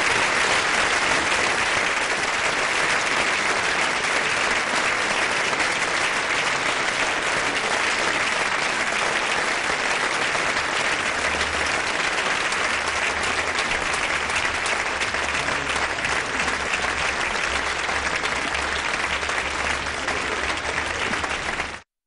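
Theatre audience applauding steadily at the end of a song, cut off abruptly near the end.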